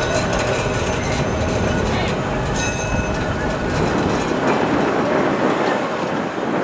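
Heritage electric tram running on rails, its wheels rumbling, with a high steady wheel squeal for a few seconds in the middle. The low rumble dies away after about four and a half seconds.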